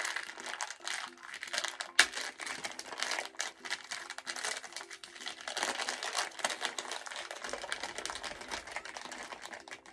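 Foil blind bag crinkling as it is handled and opened by hand: a dense, irregular crackle, with one sharp snap about two seconds in.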